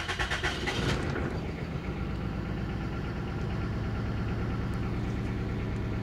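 2000 Toyota Celica GT's 1.8-litre four-cylinder engine just started, its revs settling during the first second and then idling with an uneven pulse. It is misfiring on cylinder 3, which the mechanic puts down to an ignition coil going bad.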